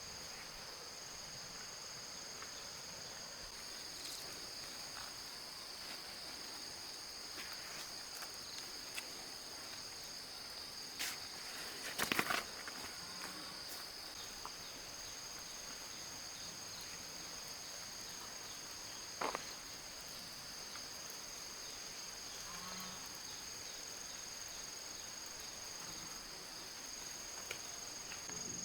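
Steady high-pitched insect chorus, with a few sharp clicks and knocks scattered through it, the loudest cluster about twelve seconds in.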